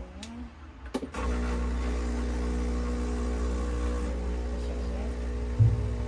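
Breville espresso machine's pump running with a steady hum as water is pushed through the group head and portafilter to flush them clean. It starts just after a click about a second in, and there is a brief low knock near the end.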